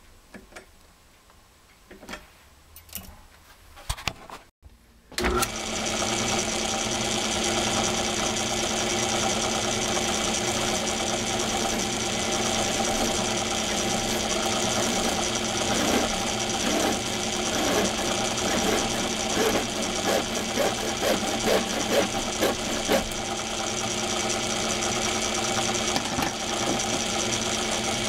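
A few light metal clicks as a small part is clamped in a lathe's three-jaw chuck, then, about five seconds in, a small metal lathe running steadily with a whine of several tones. Over it come irregular rasping strokes of a hand file on the spinning metal part.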